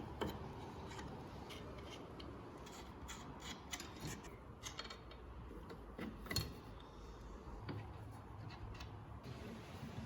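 Scattered light clicks, ticks and scrapes at an irregular pace, the sound of small hand work with tools or metal parts.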